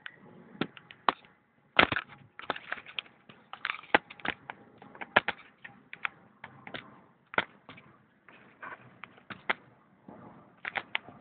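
Irregular clicks, knocks and rubbing of a handheld phone being handled, with fingers moving over the phone close to its microphone.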